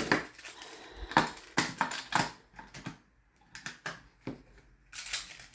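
Plastic magnetic building tiles clicking together as they are snapped into place, a string of sharp, irregular clacks.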